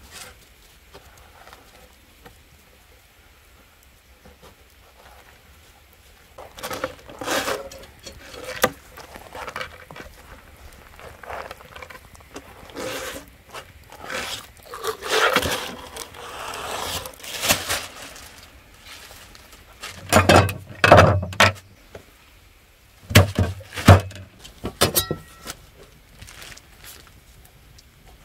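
Rubbing and scraping as a whole sturgeon is wiped down with a cloth on a wooden table, coming in scattered bouts, with a few loud thumps about two-thirds of the way through.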